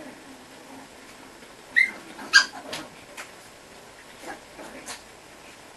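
Chihuahua giving two short, high-pitched squeaks about two seconds in, the second louder, followed by a few fainter sounds.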